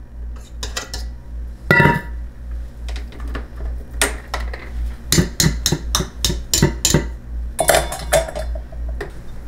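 Stainless steel stand-mixer bowl and wire whisk clanking and tapping: one ringing knock about two seconds in, a quick run of sharp metal taps later on, and a short clatter near the end. A steady low hum runs underneath.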